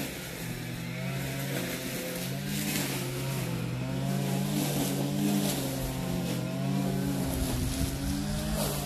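Steady drone of petrol engines on hedge- and bank-cutting machinery, the pitch wavering slightly.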